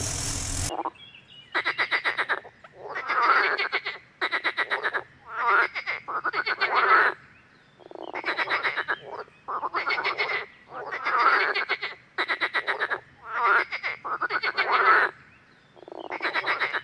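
Edible frog (green frog, Pelophylax esculentus) croaking. Repeated rattling bouts, each a rapid train of pulses lasting about a second, with short pauses between them, starting about a second in.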